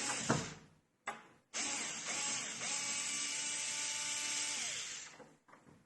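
Xiaomi Mijia electric screwdriver's motor whirring as it turns a screw in a door lock: a click about a second in, then the motor runs for about three and a half seconds with a brief break early on, and its pitch drops away as it stops.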